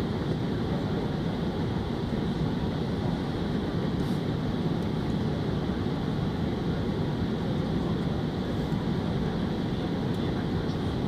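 Steady cabin noise of an Airbus A380-800 airliner in cruise: a deep, even rush of airflow and engine noise, heard from inside the passenger cabin.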